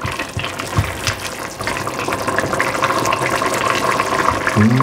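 Soup boiling in a large stainless steel pot while a spatula stirs it: a steady wet bubbling with many small pops.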